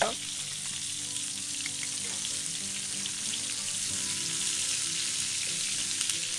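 Freshly added sliced red onions sizzling steadily in hot fat in a wrought-iron pan, stirred with metal tongs that tick lightly against the pan now and then.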